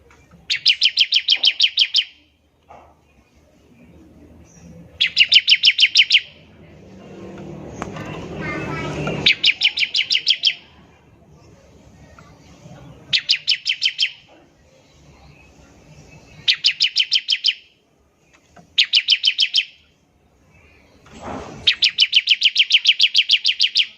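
Bar-winged prinia (ciblek) giving its rapid 'ngebren' call: seven bursts of fast, evenly repeated sharp high notes, about ten a second, each burst roughly a second long with short gaps between. Between the third and fourth bursts a noisy swell rises for about two seconds and cuts off suddenly.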